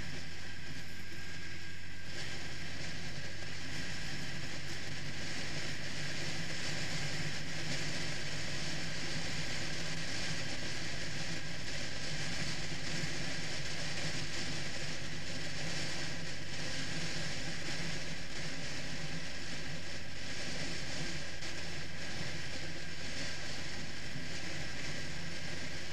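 Triumph Rocket III motorcycle's engine running steadily at cruising speed, under a constant rush of wind on the microphone.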